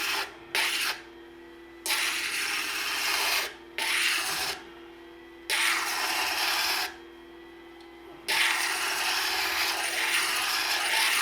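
Ameritool universal grinder's motor running steadily while a turquoise cabochon is pressed to its water-fed 180-mesh diamond disc in about six separate grinding passes, each a harsh hiss lasting one to three seconds, rounding the stone's edge.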